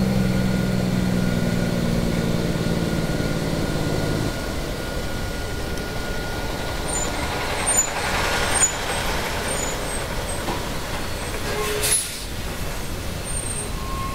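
Truck towing a drawbar trailer passing close by. Its diesel engine runs steadily and drops away about four seconds in, leaving the rumble of tyres and body that swells as the trailer goes past, with a couple of knocks and two short bursts of hiss near the end.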